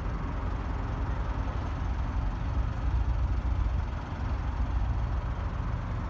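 Wind buffeting a phone's microphone: a loud, fluttering low rumble over a steady background hiss.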